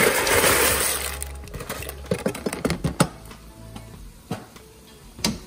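Dry tube pasta poured from a cardboard box into a pot of boiling water: a rush of rattling and splashing for about a second, then scattered clicks and knocks as the last pieces drop in, the sharpest about three seconds in.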